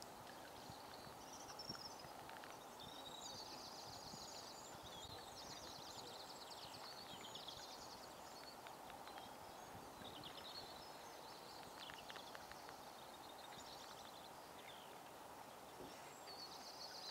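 Faint outdoor ambience with small songbirds singing: high, quick trilling and chirping phrases that come and go over a soft steady background hiss.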